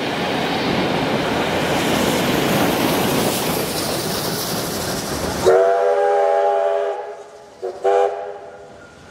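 Carriages of a K-class steam train rolling past on the rails with a steady rumble that cuts off about halfway through, followed by two blasts of the locomotive's whistle, one long held note and then a short one near the end.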